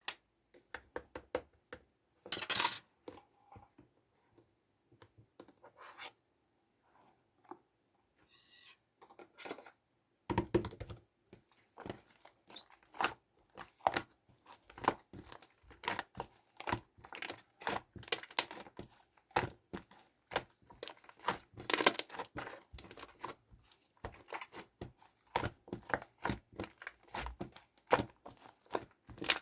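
Blue and white slime being squeezed and mixed by hand, making wet clicks and crackles. They come in scattered bursts at first, then run thick and fast from about ten seconds in.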